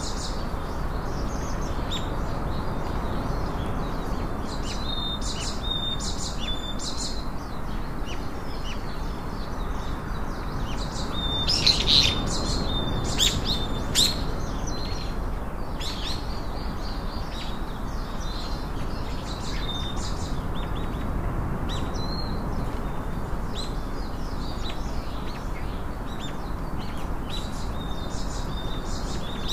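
Small birds chirping and twittering in short repeated calls, busiest about halfway through, over a steady background hiss.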